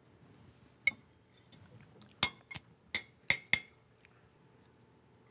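Metal fish spatula clinking against a plate and the skillet while a sole fillet is lifted across: one sharp clink about a second in, then five in quick succession.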